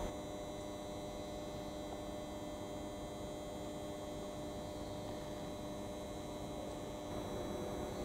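Steady electrical hum made of several unchanging tones over a faint background hiss.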